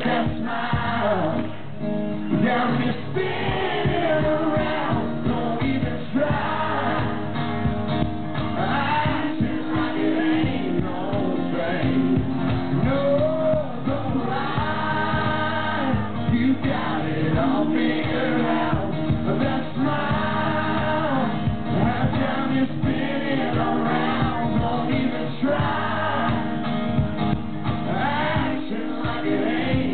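Live band performance: a male lead vocalist sings over strummed acoustic guitars and the band.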